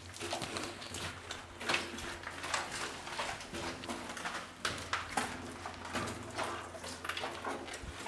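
Footsteps of people walking over a debris-strewn floor of leaves, wood and rubble, an uneven patter of steps about two a second.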